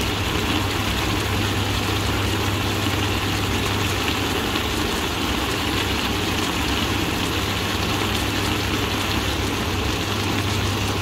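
Spicy baby octopus and pork belly stir-fry sizzling in a split pan beside a simmering clam soup, an even hiss over a steady low hum.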